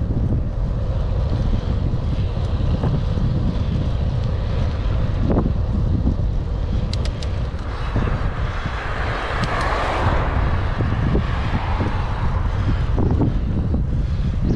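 Wind buffeting the microphone of a helmet-mounted camera on a moving bicycle: a loud, steady low rumble. A hissing swell builds from about eight seconds in, peaks around ten seconds and fades by about twelve.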